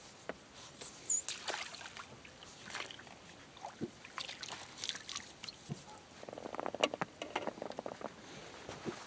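Landing net being dipped and swished in shallow lake water: scattered light splashes and drips, with a busier run of splashing a little past the middle.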